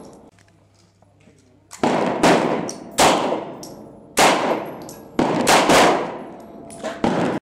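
Semi-automatic 9mm pistol of the TEC-9 family fired about eight times at an uneven pace, each shot trailing off in a short echo; the shooting cuts off suddenly near the end.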